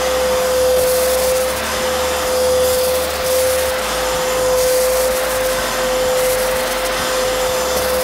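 Arnica Vira washing vacuum cleaner running steadily during wet floor cleaning, its motor giving a constant whine, while the floor nozzle sprays cleaning solution and sucks it back up. A hiss over the whine comes and goes every second or two.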